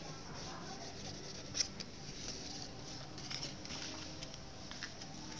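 Sheet of paper rustling and crackling as it is folded and creased by hand, in a string of short crisp rustles, the sharpest about a second and a half in.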